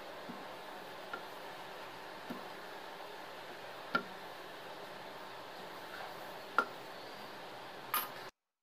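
Wooden rolling pin rolling potato dough on a wooden board: a few light, scattered knocks and taps over a steady faint hiss, the clearest about four seconds in. The sound cuts out just before the end.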